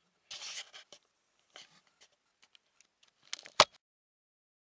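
Soft rustling and scraping close to the microphone, like clothing and handling noise, then a single sharp click or knock about three and a half seconds in, the loudest sound.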